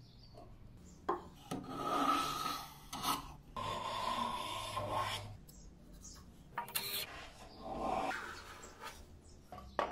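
Hand tool worked across mahogany in about four strokes, each one to two seconds long.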